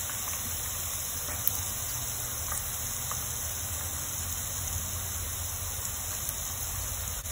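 Beef pieces frying in hot oil in a pan: a steady sizzle, with a few faint ticks.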